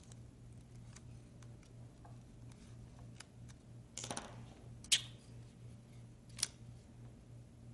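Small scraping and clicking of a pry tool working a cracked glass tablet digitizer loose from its adhesive: a short scrape about four seconds in, then sharp clicks near five seconds and again about a second and a half later, over a low steady hum.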